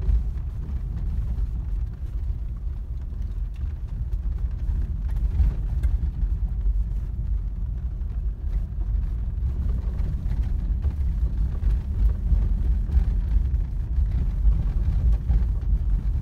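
Car driving slowly over a rough, unpaved gravel-and-sand track, heard from inside the cabin: a steady low rumble of tyres and engine, with scattered small knocks and rattles from the bumps.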